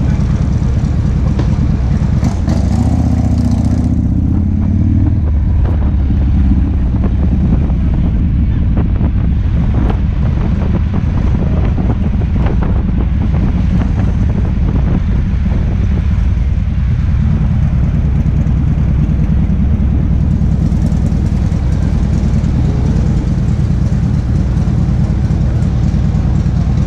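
Harley-Davidson FXRP's 1340cc Evolution V-twin engine running steadily as the motorcycle rolls through slow city traffic, with a brief rise and fall in pitch about three seconds in.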